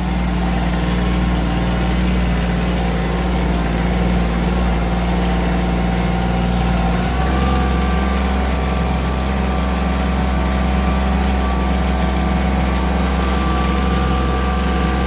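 Compact loader tractor's engine running steadily, heard from the driver's seat; the engine note steps up slightly about seven seconds in.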